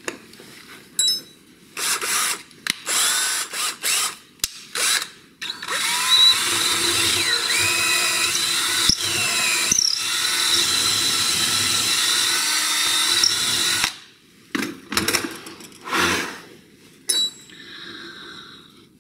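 Yellow cordless drill boring into a softwood block: a few short trigger bursts, then a steady run of about eight seconds whose motor whine rises and falls as the bit loads and frees, followed by a couple more short bursts.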